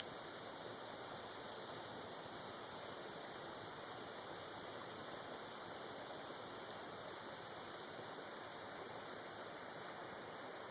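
Steady rush of a creek's flowing water, even and unbroken.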